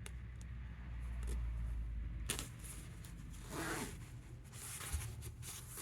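A zipper and its fabric being handled and worked by hand: scattered small clicks with short rustles, the longest about three and a half seconds in.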